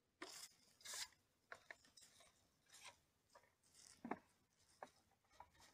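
Faint knocks and scrapes of a wooden hive bottom board being handled and set down, with one firmer knock about four seconds in.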